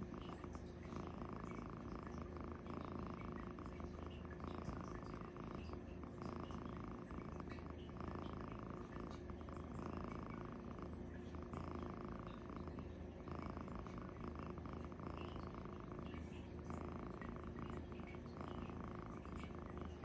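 Cat snoring loudly in its sleep: a rasping snore that swells and breaks off with each breath, about every two to three seconds.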